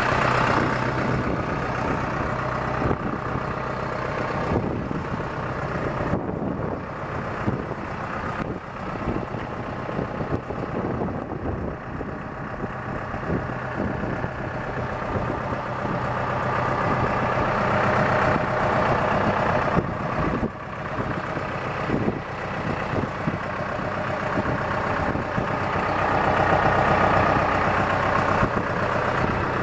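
2010 New Holland T5050 tractor's diesel engine idling steadily.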